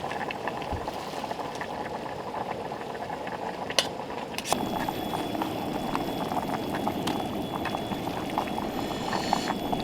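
A pot of beef rib broth bubbling at a steady boil, with many small pops. A sharp click comes about four seconds in, and a faint steady high tone joins soon after.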